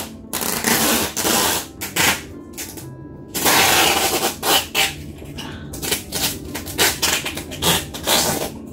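Plastic wrapping and packing tape on a cardboard box rustling and crinkling as the box is handled. It comes in irregular bursts, with one longer crinkle about three and a half seconds in.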